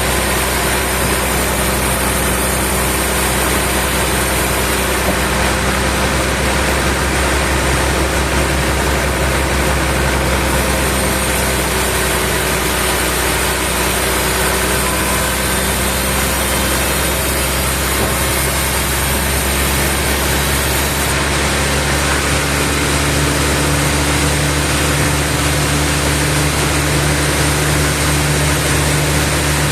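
Heavy engine running steadily, as in sawmill machinery; its low note changes about two-thirds of the way through.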